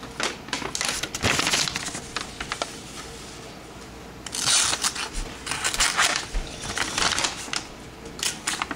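Irregular scraping, rustling and sharp clicks of a folding knife being handled while its blade is tried for sharpness.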